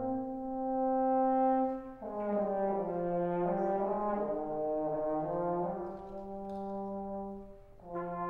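Brass quartet of trumpet, trombone, French horn and tuba playing slow held chords. One chord sustains, then about two seconds in the parts come in again with shifting notes, and a new chord begins near the end.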